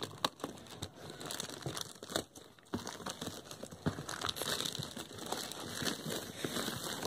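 Packaging crinkling and tearing as a cardboard shipping box is opened, in irregular rustles with many small clicks and snaps.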